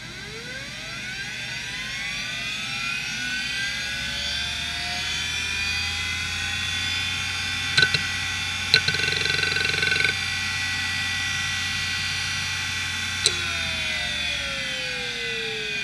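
IBM Deskstar 3 DAQA-33240 3.5-inch 5400 rpm hard drive spinning up, its spindle whine rising in pitch for about six seconds and then holding steady. A few sharp clicks and about a second of buzzing head seeks come as it initialises, then a click near the end and the whine falls as the drive spins down.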